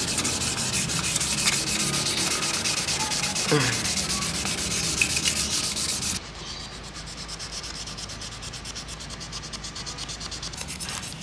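Hand sanding of a Vespa's aluminium crankcase with 1000-grit sandpaper: quick, even rubbing strokes of fine abrasive paper on metal. About six seconds in the rubbing turns quieter and duller.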